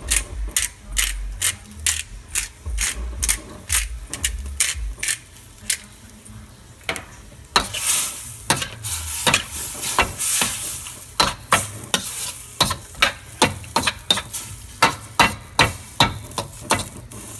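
Metal ladle clinking and scraping against a stainless steel wok as squid is stirred in its simmering sauce, with sizzling from the pan underneath. The strokes come several to a second, with a short pause near the middle.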